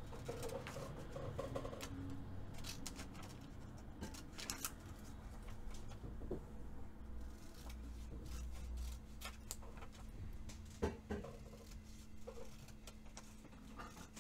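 Scissors snipping through paper in short, irregular cuts.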